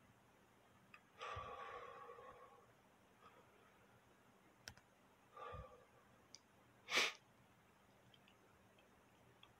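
Faint noises in a quiet small room. A breathy, sigh-like sound starts about a second in and lasts over a second, and a shorter one follows after about five seconds. There are a few faint ticks, and one sharp knock about seven seconds in is the loudest sound.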